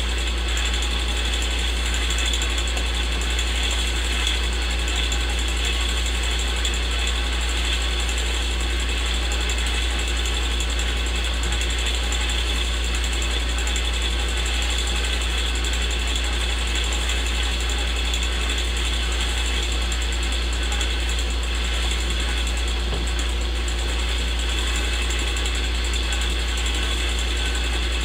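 Old movie projector sound effect: a film projector running steadily over a constant low hum.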